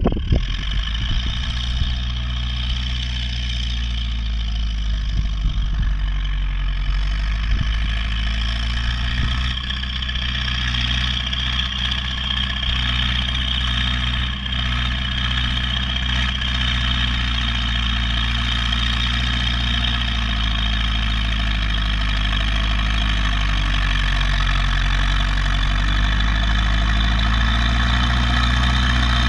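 MTZ tractor's diesel engine running steadily under load while pulling a deep plough through the soil, growing gradually louder as the tractor comes closer.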